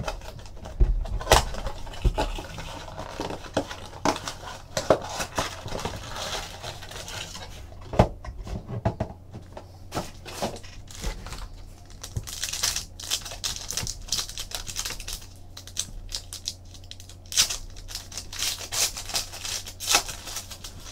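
Foil trading-card packs and their wrapping crinkled and torn open by hand, with scattered clicks and taps from handling the box and packs. The crinkling comes in clusters, busiest in the second half.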